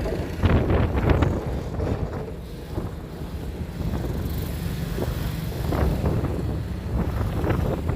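Heavy excavator working, its engine rumbling steadily under irregular metallic clanks and knocks, with wind noise on the microphone.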